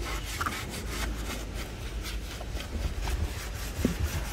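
A car surface being scrubbed by hand with a scrub sponge: quick, rhythmic back-and-forth rubbing strokes over a low rumble.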